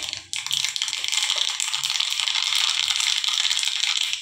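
Fenugreek and yellow mustard seeds sizzling and crackling in hot oil in a small steel tadka ladle, a dense crackle that starts suddenly about a third of a second in: the seeds spluttering as the tempering (tadka) is made.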